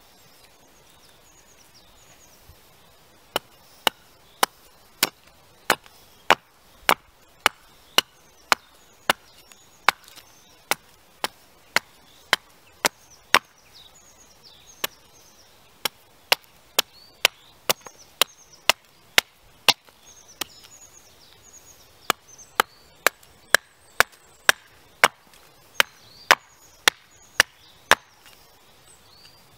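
Carving axe chopping a wooden spoon blank held on a tree stump: sharp, single woody strikes about two a second, starting a few seconds in, in runs broken by two short pauses.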